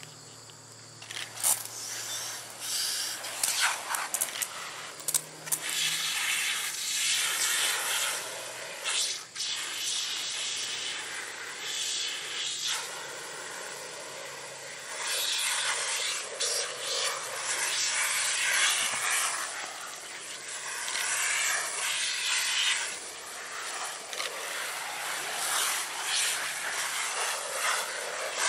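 Garden hose spray nozzle hissing as water sprays onto clothes and skin, rinsing off a mess. The spray starts about a second in and rises and falls in loudness as the stream is moved around.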